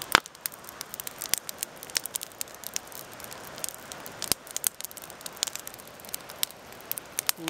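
Wood campfire crackling, with irregular sharp pops from the burning logs: one loud pop right at the start and another a little past midway.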